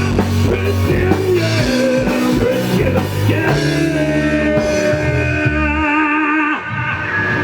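Rock band playing live: drum kit, bass and guitar with singing. About six seconds in the bass and drums drop out, leaving wavering held notes.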